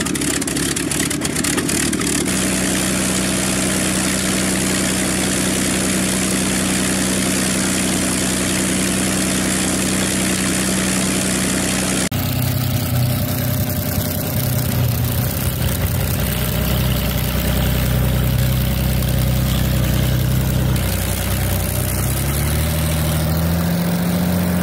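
Allison V-1710 liquid-cooled V-12 aircraft engine running on a ground stand with a steady drone. About halfway through it cuts to another run of the engine at a lower note, which rises as the engine is revved up near the end.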